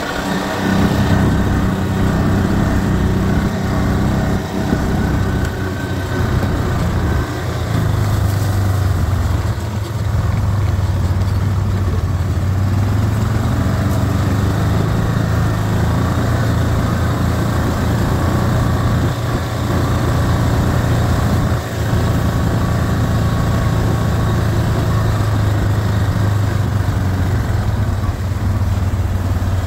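ATV engine running at steady, low trail-riding revs, heard from on board the moving machine, with a brief dip in level about two-thirds of the way through.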